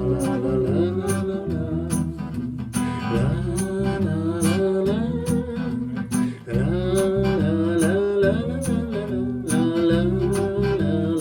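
Live band playing the instrumental intro of a song, with guitar, a steady bass line and a regular percussion beat under a melody line that rises and falls.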